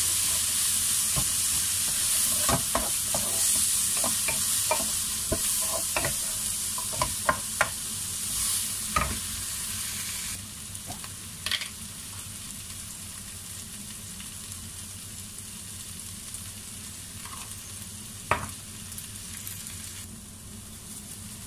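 Mixed vegetables sizzling in a frying pan while a wooden spatula stirs them, with scrapes and knocks against the pan. The spatula knocks come thick and fast for the first half, then give way to mostly steady sizzling with one sharp knock near the end.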